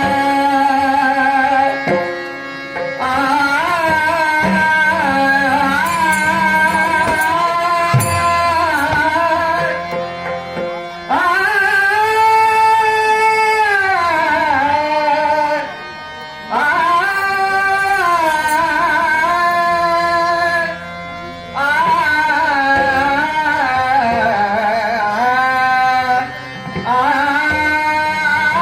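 A male singer performing a devotional Ganesh stavan, singing long ornamented phrases with held notes that glide up and down, over hand-drum and instrumental accompaniment. Brief pauses for breath fall between the phrases.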